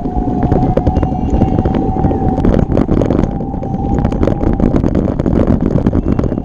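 An e-bike ridden along a trail: wind buffets the microphone over a constant low rumble and rapid clicks and rattles from the bike on the ground. A steady whine, likely the assist motor, holds until about five seconds in and then fades.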